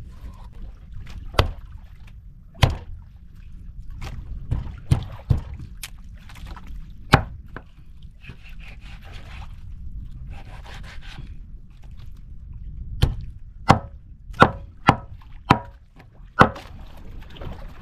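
Knife chopping through fish on a wooden cutting board: about fifteen sharp chops in irregular bunches, with a pause in the middle, over a steady low rumble.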